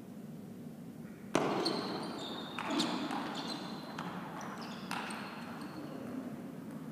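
Table tennis rally: the ball clicking off bats and table, with short high squeaks of shoes on the sports floor. The first and loudest hit comes about a second and a half in, and the rally ends a few seconds later.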